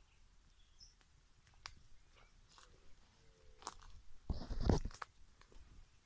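Footsteps crunching through dry leaf litter and twigs on a forest path, with a louder rustling thump a little over four seconds in as the walker brushes through the undergrowth.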